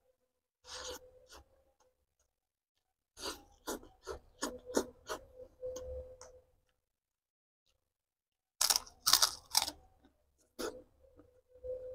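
Close-up eating sounds: a man chewing with mouth noise and crisp crunches in several short runs, the longest a quick series of crunches a few seconds in.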